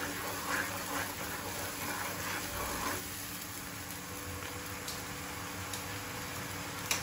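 Hot oil with ginger-garlic paste and ground spices frying and bubbling in a wok, a wooden spatula stirring and scraping through it for about the first three seconds, then a steady sizzle on its own.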